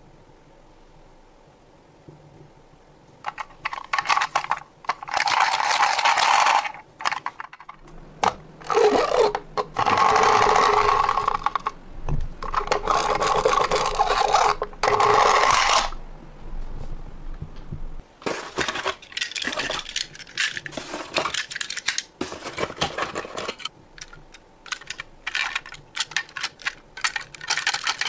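Small toy ambulances rolling across a wooden floor: three whirring runs of a few seconds each, then a long stretch of rapid clicks and clatter from the small plastic and die-cast toy cars.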